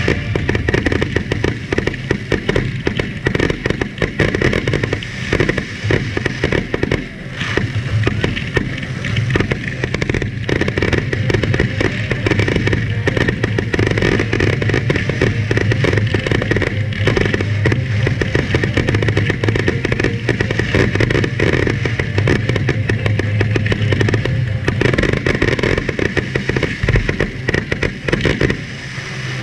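Fireworks finale: a dense, continuous barrage of aerial shells bursting and crackling, the reports running together with hardly a gap.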